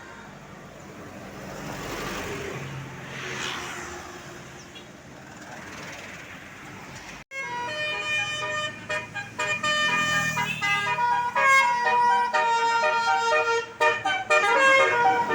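A vehicle passing, its road noise swelling and fading. About seven seconds in there is an abrupt cut, and then a bus's telolet musical air horn of the Basuri type plays a loud tune of changing notes.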